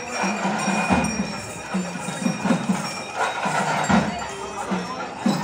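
Procession percussion: a steady drum rhythm with heavier beats every few seconds and some metallic ringing, over crowd noise.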